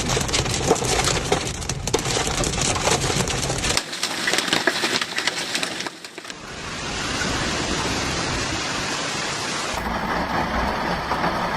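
Hailstones clattering down in a dense, rapid patter of impacts on hard surfaces. After abrupt changes around the middle, it becomes a steady hiss of heavy hail and rain.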